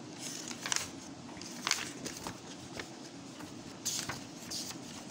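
Pages of a paperback textbook being flipped by hand: several short, soft paper swishes and flutters.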